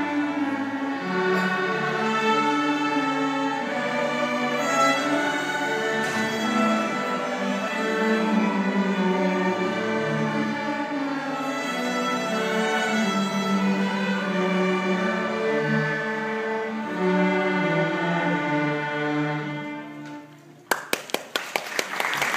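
Student string ensemble of bowed strings playing a classical piece that ends about twenty seconds in. Audience applause starts right after, near the end.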